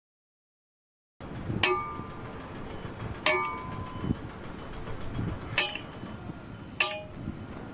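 Four sharp metallic clangs, each ringing briefly, spaced one to two seconds apart, after about a second of silence: metal being struck against metal.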